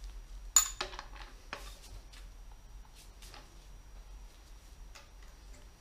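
Metal-on-metal clank of a large dial torque wrench and its socket on the connecting-rod bolts of a Rolls-Royce Merlin crankshaft assembly: one sharp, ringing clank about half a second in, then lighter clicks and knocks as the wrench is worked.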